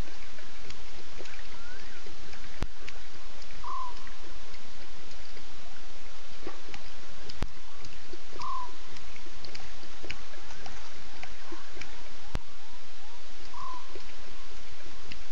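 Night bush ambience at a waterhole: many faint small chirps from a frog and insect chorus over steady hiss, with a short, slightly falling call repeated about every five seconds. Three sharp clicks come about five seconds apart.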